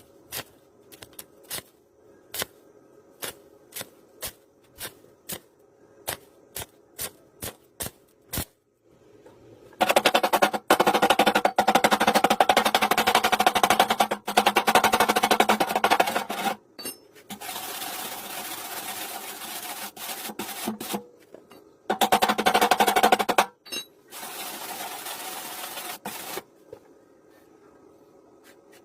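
Electric arc welding on thin 0.8 mm hollow steel tube. First a series of sharp single clicks, short arc strikes or tacks, then long spells of crackling arc with a steady hum, two of them loud and two quieter, ending a couple of seconds before the end.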